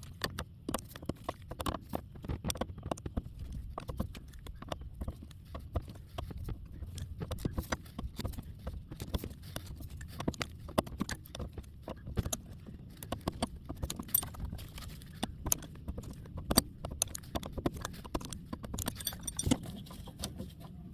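Irregular clicks and light metallic knocks of a wrench working the rear brake line fitting loose on a master cylinder.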